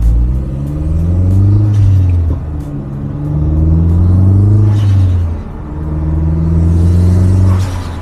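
Mazdaspeed3's turbocharged 2.3-litre four-cylinder accelerating through the gears: the engine note climbs three times, dropping at each upshift, with a short whoosh around the last two shifts.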